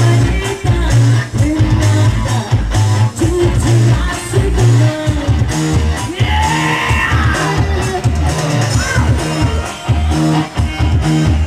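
Loud music with a heavy beat, guitar and a singing voice.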